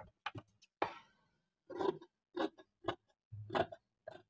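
Large steel tailor's shears cutting through blouse fabric on a table: a knock about a second in, then a run of short snips, about two a second.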